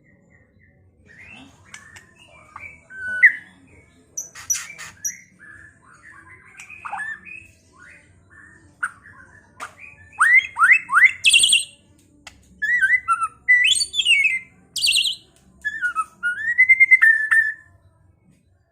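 White-rumped shama (murai batu) singing a varied song of whistled notes, sharp gliding calls and rapid chattering trills. The song is sparse at first and denser and louder from about halfway through.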